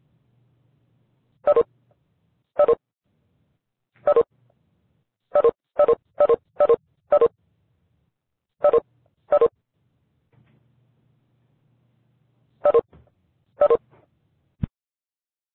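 Mobile phone key beeps: about a dozen short electronic beeps at uneven intervals, some in quick runs, with a single sharp click near the end.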